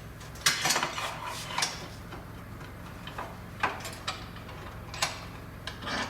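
A run of sharp clicks and knocks from hand work in a shop: a quick cluster in the first two seconds, then single knocks spaced about half a second to a second apart. A steady low hum runs underneath.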